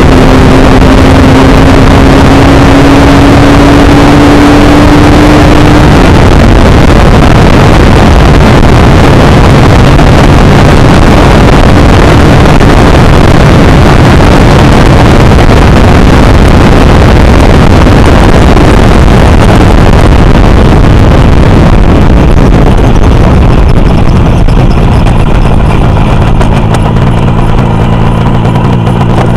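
Custom racer motorcycle's engine pulling at high speed, nearly buried under heavy wind noise on the microphone. The engine note climbs slowly over the first several seconds, then rises again near the end.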